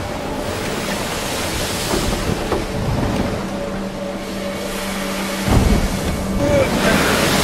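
Storm at sea: wind and waves crashing around a boat, with a surge of water about five and a half seconds in. A low steady tone holds through the middle.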